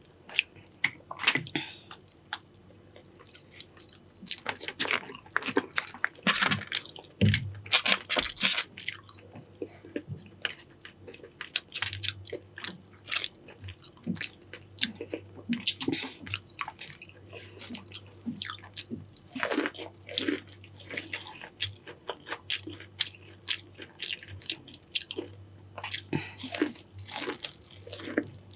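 A person chewing and biting into a Cajun-sauced seafood boil: many short, irregular mouth sounds.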